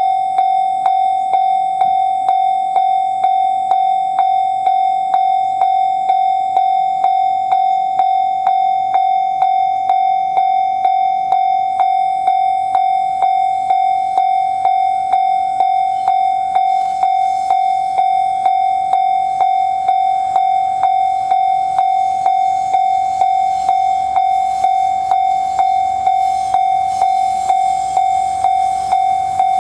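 Japanese level-crossing electronic warning bell ringing in a steady, even pulse, about two strokes a second, on a single high tone. A rushing noise builds under it near the end.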